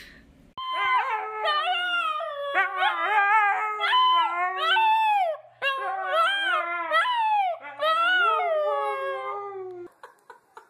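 Siberian husky puppy howling: about four long, wavering calls in a row, separated by short breaks. The calls start suddenly about half a second in and stop just before the end.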